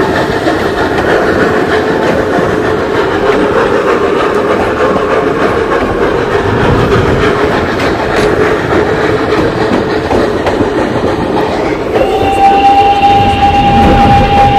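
Narrow-gauge steam train running, wheels clattering on the rails over a steady rumble. About twelve seconds in, the locomotive's whistle starts one long, steady blast.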